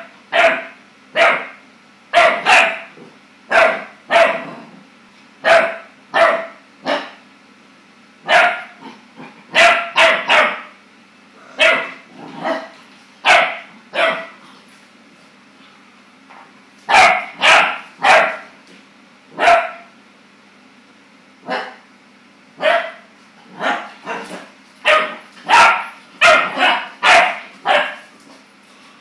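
Clumber spaniel puppy barking at its own reflection, dozens of short barks in irregular runs with pauses of a second or two between them.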